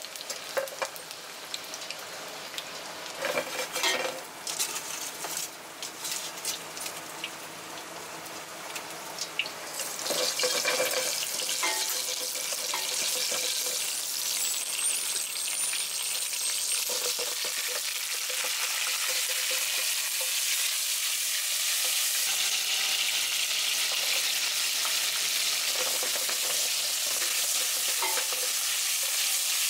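Oil sizzling in a frying pan, first gently around garlic and dried chilies with occasional clicks of stirring, then about ten seconds in jumping to a loud, steady sizzle as live-caught Japanese freshwater crabs (sawagani) fry in the hot oil.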